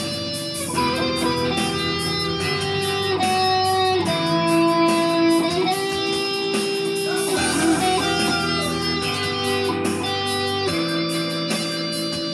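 Electric guitar, a Stratocaster-style with single-coil pickups, playing held melodic notes that change every second or two. Under it runs a slow ballad backing track in E minor with a steady ticking beat and low bass notes.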